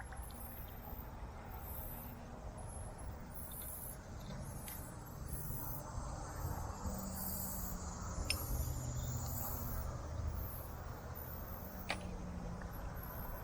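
Wind buffeting the action camera's microphone as a low rumble, with faint, very high-pitched insect chirping coming and going above it and a few small clicks.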